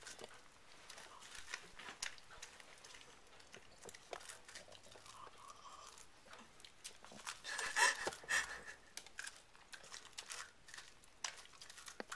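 A dog gnawing kernels off a corn cob: a run of small, sharp crunches and teeth clicks, growing denser and louder about eight seconds in.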